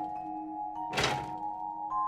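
Film score of held, slowly changing notes, with one heavy thunk about a second in. The thunk belongs to a regular series of thunks a little over a second apart.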